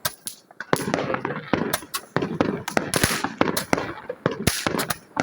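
Small New Year fireworks going off: a run of irregular sharp pops and bangs, several a second, with crackling hiss between them.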